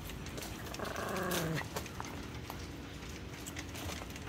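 A dog calls out once about a second in: a single pitched call lasting under a second that drops in pitch at its end.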